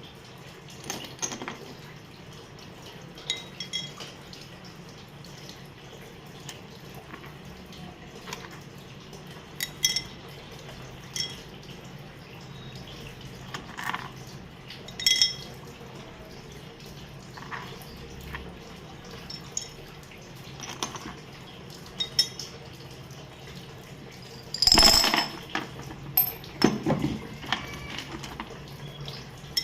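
Scattered clinks and knocks of hard objects such as glass or dishware being handled, some with a brief ringing, over a steady low hum. The loudest clatter comes about 25 seconds in.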